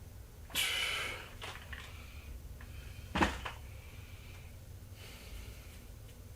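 A person's breathing: a loud forceful exhale or sniff about half a second in, then fainter breaths, with a short sharp knock about three seconds in.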